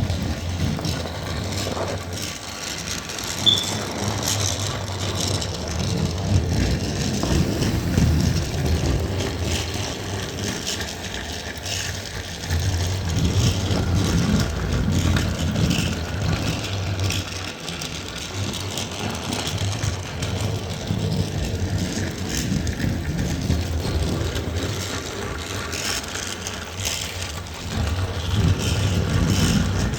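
Battery-powered Trackmaster toy train engine running around a plastic track oval with a carriage in tow, its small motor whirring steadily. The running noise swells and fades slowly as the train circles.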